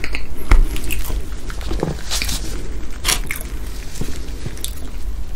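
Close-miked eating sounds: a man chewing a mouthful of soft chocolate cake, with irregular wet mouth clicks and smacks.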